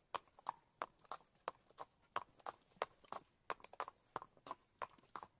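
Sound effect of a horse walking: faint hooves clip-clopping at a steady walk, about three hoofbeats a second.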